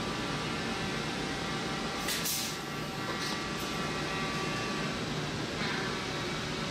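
Steady mechanical hum of machine-shop equipment with faint steady whines, broken by a brief hiss about two seconds in.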